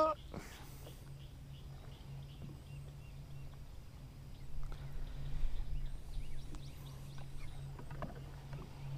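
Outdoor ambience on the water: faint bird calls over a steady low hum, with a low rumble swelling between about four and a half and six and a half seconds in.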